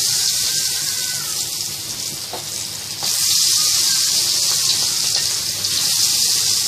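Hot oil in a kadhai sizzling as marinated prawns deep-fry. The sizzle eases a little, then swells again about three seconds in.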